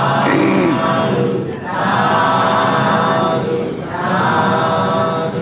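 Many voices chanting together in three long, drawn-out phrases: a Buddhist congregation's unison 'sadhu, sadhu, sadhu' in response to a monk's blessing.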